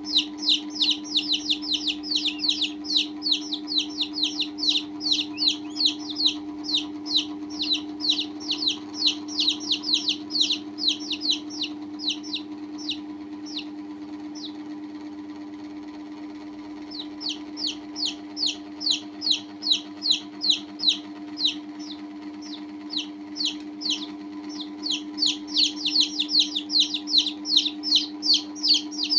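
Baby chicks peeping: rapid, high-pitched, falling peeps about four a second. They thin out for a few seconds about halfway through, then pick up again, over a steady low hum.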